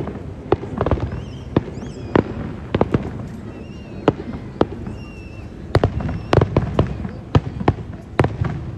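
Aerial fireworks bursting: a rapid, irregular string of sharp bangs, coming thicker near the end.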